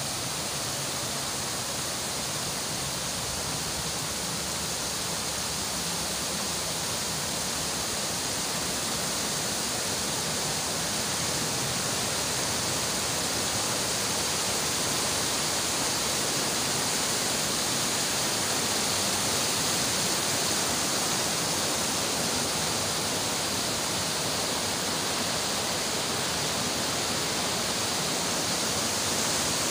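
Shallow, fast-flowing mountain stream rushing over and around boulders in a steady rush of water, growing slightly louder after about ten seconds.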